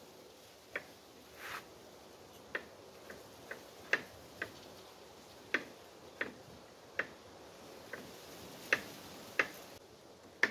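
Small knife clicking against a cutting board as garlic cloves are sliced, in sharp, irregular taps about one or two a second.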